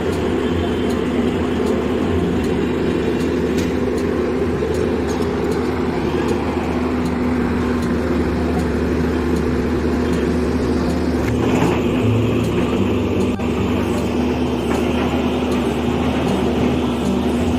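Diesel engine of an XCMG 180D rotary drilling rig running steadily, with a constant low hum. About twelve seconds in the noise grows a little louder and brighter for a moment.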